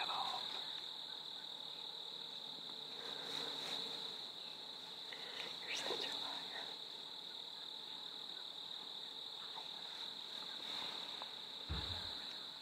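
A steady, high-pitched insect chorus trills without pause, with a short low rustle near the end.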